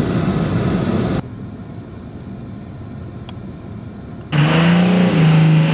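Pickup truck engine and road noise heard from inside the cab on a snowy road, cut off after about a second by a quieter outdoor hush. About four seconds in, a pickup's engine comes in loud and holds a steady pitch as it works up through the snow, dipping slightly in pitch at the very end.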